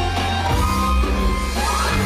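Loud dance music from a party band, with a heavy bass and held notes. A lead line slides up in pitch near the end.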